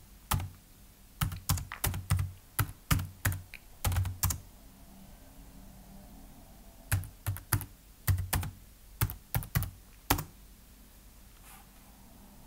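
Keystrokes on a computer keyboard typing a terminal command: a quick run of clicking keys for about four seconds, a pause, then a second run of keystrokes ending about ten seconds in.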